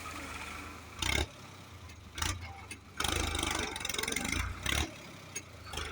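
Case IH JX55 tractor's diesel engine running while ploughing, broken by several loud noisy bursts about a second in, about two seconds in, and from three to nearly five seconds.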